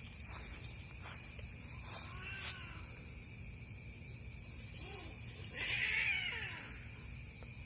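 Cats yowling as they fight: a faint wavering call about two seconds in, then a louder yowl with sliding pitch around six seconds in.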